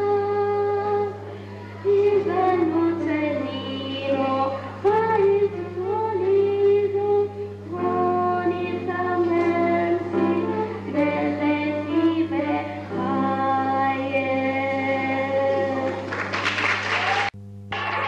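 A child soloist singing an Italian children's song with piano accompaniment, held sung notes over a steady low hum. Near the end the singing gives way to a short noisy burst, and then the sound cuts out abruptly.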